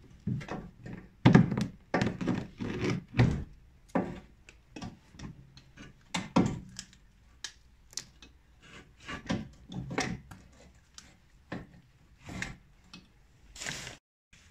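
Irregular knocks and clunks as a VW Polo driveshaft's inner CV joint is worked into place against the gearbox output flange, loudest and most frequent in the first few seconds, with a brief rushing noise near the end.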